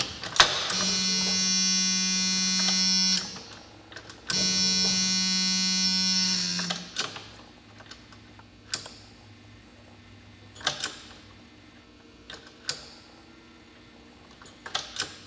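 Two steady electric buzzes of about two and a half seconds each, a second apart, as a 1991 Jeep Wrangler YJ's ignition key is switched on twice to prime the fuel system. After them come light scattered clicks from the key and switch.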